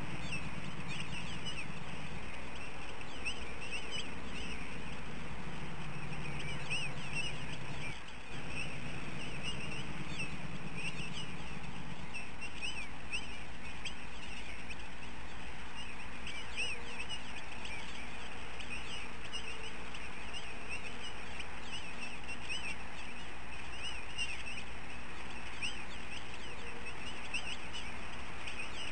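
Many quick, short bird chirps repeating several times a second, with a low hum underneath that stops about twelve seconds in.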